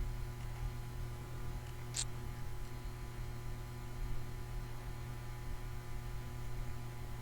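Steady electrical mains hum with a buzz of evenly spaced overtones, picked up by the recording microphone, with one brief sharp click about two seconds in.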